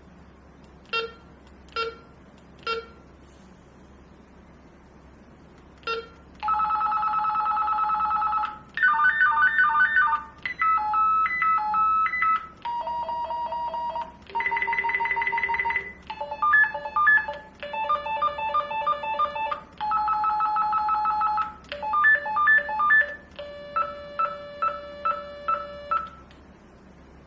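Retevis RB628 walkie-talkie beeping through its small speaker: three short key beeps about a second apart, one more a few seconds later, then a string of different electronic ringtone-like melodies, each one to two seconds long, played one after another.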